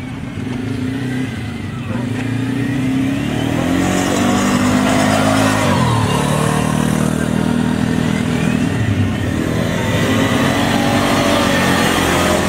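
Quad bike (ATV) engines running and revving as they drive over a sand track. The engine pitch climbs about four seconds in, drops sharply near six seconds and picks up again, and the sound gets louder as the bikes come closer.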